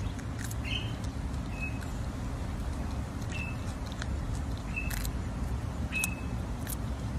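Quokka eating a piece of fruit close to the microphone, with soft clicking chews over a steady low rumble. Short high peeps come about six times, roughly one a second.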